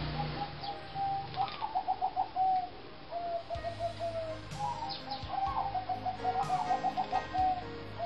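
Caged zebra doves cooing in several phrases, each a quick run of staccato notes that ends in a longer held note.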